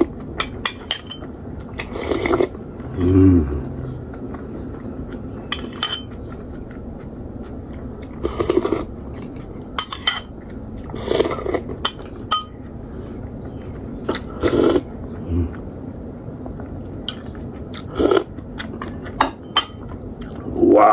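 Metal spoon scraping and clinking against a ceramic bowl held at the mouth, in irregular short strokes every second or two, with chewing and slurping of rice and dal between them.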